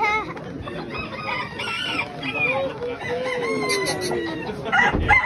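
Many penned show chickens calling at once: roosters crowing and hens clucking, with several calls overlapping. There is a thump near the end.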